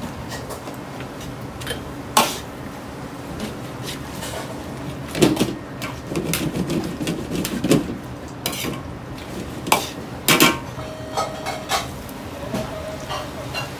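Long-handled metal ladle scraping and clanking against a large iron wok as greens and sliced pork are stir-fried over a high flame, with the burner and sizzling food making a steady noise beneath. The sharpest clanks come about two, five, eight and ten seconds in.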